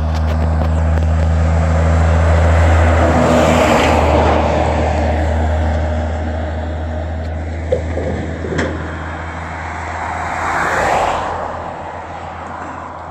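Road traffic: two vehicles pass, the first building to a peak about three seconds in and the second swelling and fading near the end, over a steady low engine hum, with a couple of sharp clicks in between.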